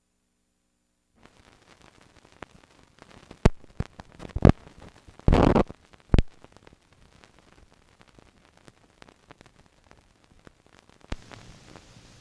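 Hiss and crackle of an old film soundtrack running over the countdown leader, with scattered clicks and several loud pops, one a short burst, around the middle. Silent for about the first second.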